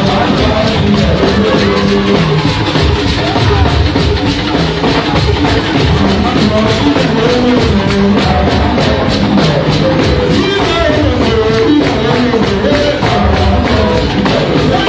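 Church congregation singing a Yoruba spirit song (orin emi) over a steady beat of percussion, gourd shakers and hand-clapping.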